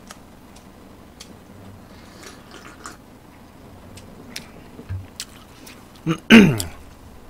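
Quiet eating sounds: faint spoon-on-bowl clicks and chewing. About six seconds in comes a man's short, loud wordless vocal sound that falls in pitch.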